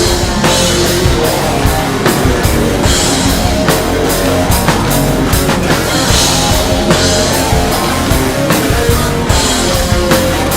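Rock band playing a passage with no sung words: a drum kit keeps a steady beat with cymbal crashes about every three seconds, under guitar.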